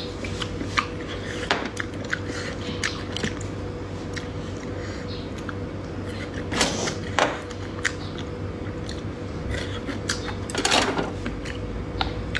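Close-miked wet chewing and mouth smacking while eating sauced sea snails, with many small sharp clicks and two longer, louder mouth noises, one midway and one near the end, over a steady low hum.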